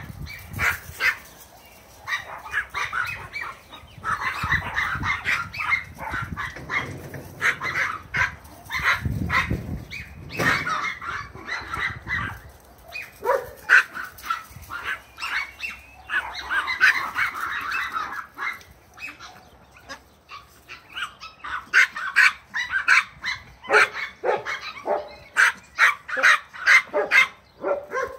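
Dogs play-barking: quick, high-pitched yaps over and over, in clusters, from a Bouvier des Flandres puppy and a long-haired Chihuahua at play.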